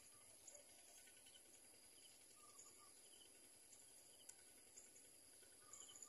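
Near silence: a faint steady high-pitched whine, with a few faint short chirps.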